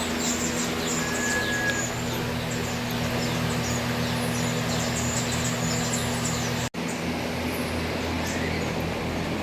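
Many small birds chirping in quick, high, short calls over a steady low hum.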